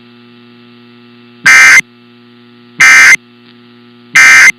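Emergency Alert System end-of-message code: three short, loud bursts of screechy digital data tones, each about a third of a second long and spaced about 1.3 seconds apart. They mark the close of the EAS test.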